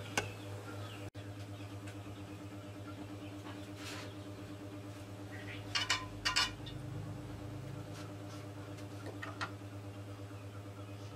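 Steady low hum with a few light clicks; about six seconds in, a metal ladle knocks twice against a steel wok of heating oil.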